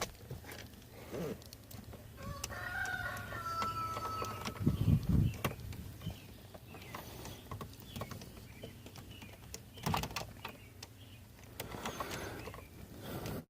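Hand reassembly of a car's steering-column trim and turn signal switch: scattered plastic clicks and knocks, the loudest a dull thump about five seconds in. About two and a half seconds in, a drawn-out, slightly falling tone lasts a couple of seconds.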